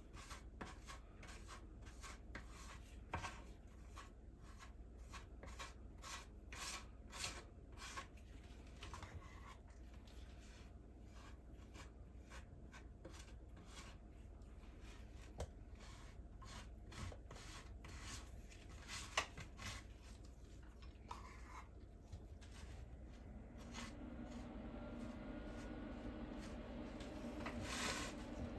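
Faint rubbing and scraping strokes as Plastic Wood filler is worked into the plywood shell of a floor tom to patch torn spots and old leg holes, many quick strokes at first and fewer later. A faint steady hum comes in near the end.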